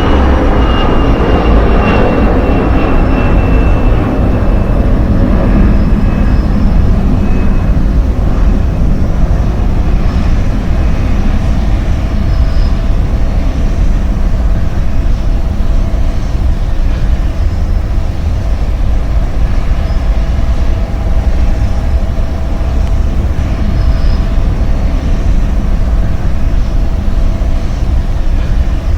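Airplane engine noise: a loud, steady rumble with a thin whine that slowly falls in pitch over the first several seconds.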